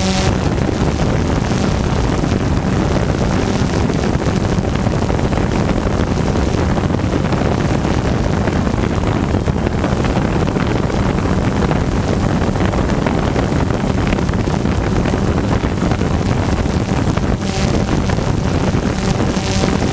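Drone's electric motors and propellers running steadily as it hovers, heard from the onboard camera with heavy wind rush on the microphone. The motor hum stands out more clearly near the end.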